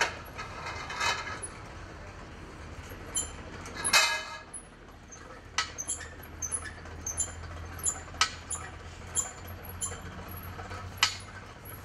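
Scattered sharp metallic clicks and clanks from a tent jack and the metal frame poles as a frame tent leg is lowered. The loudest clank comes about four seconds in. Short high chirps and a low steady hum run underneath.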